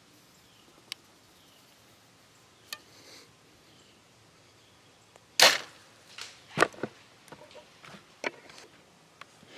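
A bow being shot: a loud sharp crack about five and a half seconds in, the bow knocking against the camera arm on release, followed about a second later by a second sharp knock and a few lighter clicks.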